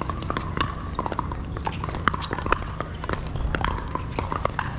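Pickleball paddles hitting the hard plastic ball in a rally: a run of sharp, hollow pops at an uneven rhythm, with more hits from surrounding courts.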